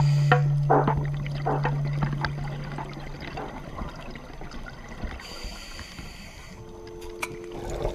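A low held note of soft instrumental background music dies away over the first three seconds, leaving a watery crackle of scattered clicks and trickling. A new chime-like music phrase begins near the end.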